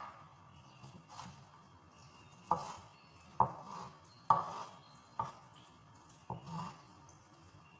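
A kitchen knife chopping an onion on a cutting board: about six separate sharp cuts, roughly one a second, the first one faint.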